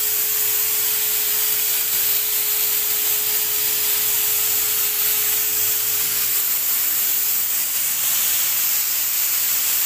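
Wagner electric HVLP paint sprayer running steadily, sounding like a vacuum cleaner, with a strong hiss of air and water mist from the spray-gun nozzle. A faint steady tone in it drops away about seven seconds in.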